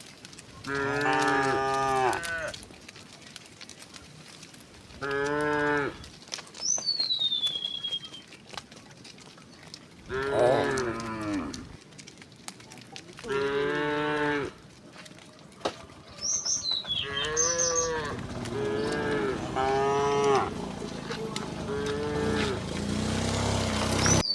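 Cows mooing: a series of about eight long, pitched moos from the herd, some overlapping, with short gaps between them. A high falling whistle cuts in a few times between the calls.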